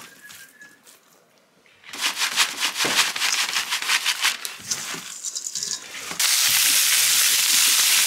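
Crushed salt-and-vinegar potato chips crunching and rattling as they are poured from the bag and pressed onto raw walleye fillets in a stainless steel bowl. About six seconds in, this cuts suddenly to the breaded fillets sizzling loudly and steadily on a hot flat-top griddle.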